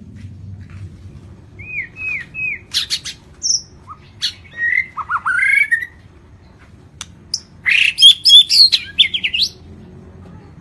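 White-rumped shama (murai batu) singing in varied phrases: three quick arched whistles, a few sharp clicking notes and some sweeping slurred notes, then after a pause a loud, dense run of notes near the end.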